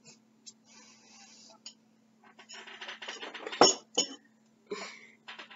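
Sipping through a metal straw, then a spoon clinking twice against a soup bowl a little past halfway, amid short mouth and eating noises.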